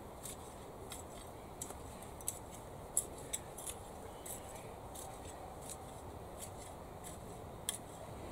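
Steel garden fork being worked through clay soil mixed with spent compost: irregular sharp clicks and scrapes of the tines, about one or two a second, over a steady low outdoor hiss.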